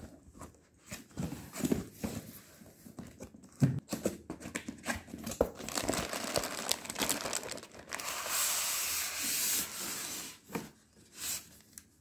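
Cardboard box being opened by hand: taped flaps tearing and scraping, cardboard rubbing, and plastic wrapping crinkling. A longer steady rustle runs for about two seconds near the end.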